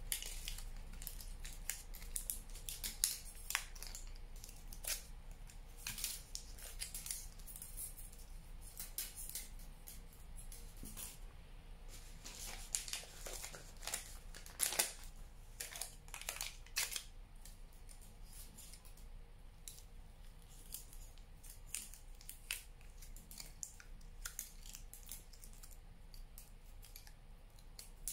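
Aluminium foil crinkling and crackling in irregular bursts as it is squeezed and wrapped tightly around twisted wire.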